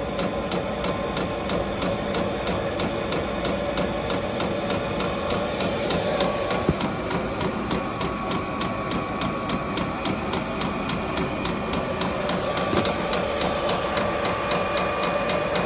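Vevor diesel heater starting up: its fuel dosing pump ticks evenly, about three times a second, over the steady whir of the blower fan, which steps up slightly in pitch a couple of times as the heater ramps up.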